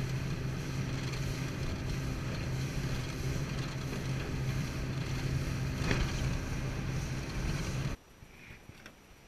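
Small motorboat's engine running steadily under way, with wind and water rush over it. It cuts off suddenly about eight seconds in, leaving only faint small noises.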